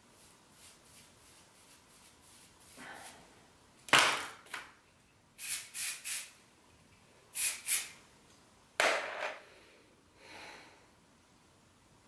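Amika Touchable hairspray sprayed onto lifted hair in a string of short hissing bursts, some in quick pairs and threes, starting about four seconds in, with the last one fainter.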